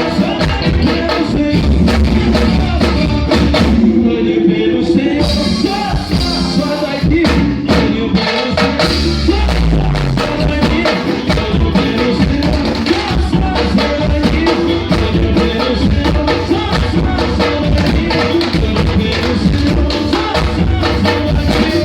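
Live gospel swingueira band playing an upbeat groove, with drum kit and hand percussion driving a steady beat under bass and keyboards. The cymbals drop out briefly about four seconds in.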